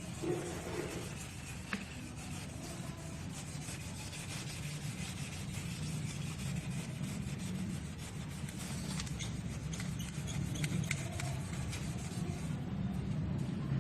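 Sandpaper rubbing steadily over a powder-coated finish: sanding.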